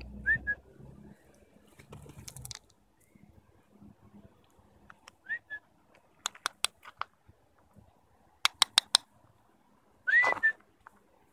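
A person whistling a short rising note three times, about five seconds apart, to get a puppy's attention. Two quick runs of about four sharp clicks fall between the later whistles.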